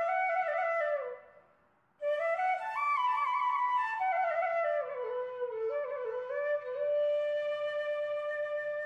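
Background flute music: a single flute melody that falls in short steps, stops for about a second, comes back, and settles on a long held note.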